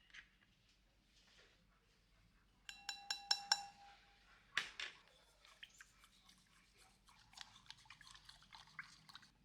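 Kitchen utensil striking a bowl: about five quick ringing taps, then a louder knock, followed by a run of small clinks and ticks as ingredients are mixed.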